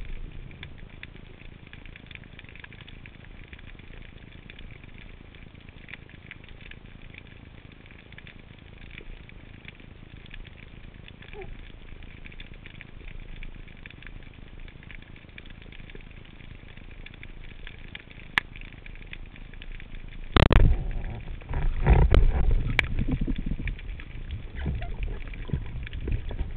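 Underwater reef ambience with a steady fine crackling, then about 20 seconds in a sudden loud thud as a speargun fires, followed by several seconds of louder low knocking and rumbling.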